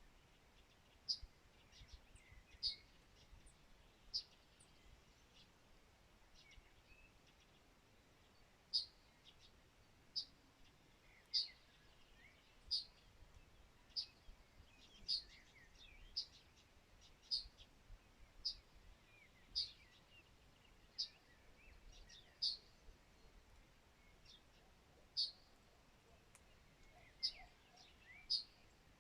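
A bird repeating a short, sharp, high chirp about every one to one and a half seconds, with a pause of several seconds near the start, over fainter softer twittering and a faint steady background hiss.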